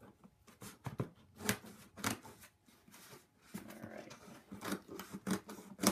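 Fingers picking and scratching at heavy packing tape on a cardboard shipping box: a string of short, irregular scrapes and taps.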